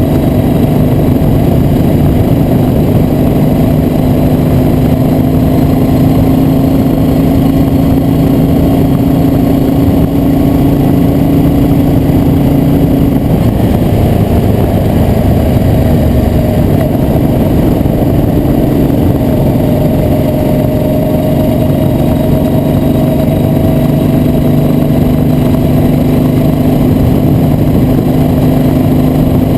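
Motorcycle engine running on the road at a steady cruise, its tone slowly rising. It eases off about halfway through and picks up again near the end.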